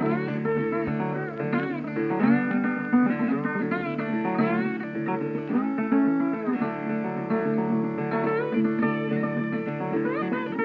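Background music: guitar tune with bending, sliding notes.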